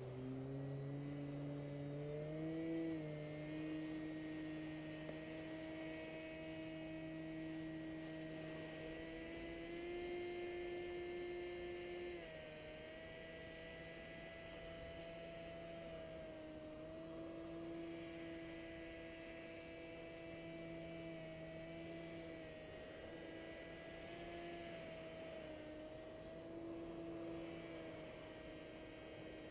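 Distant paramotor engine droning overhead: a faint steady hum whose pitch shifts slightly up and down a few times.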